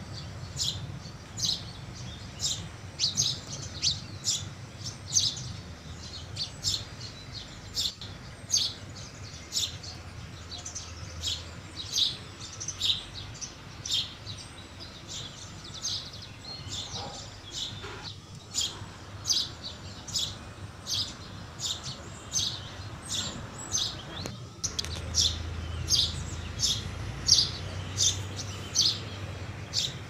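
A flock of house sparrows chirping: short, high chirps repeated one or two a second without a break, over a low steady hum.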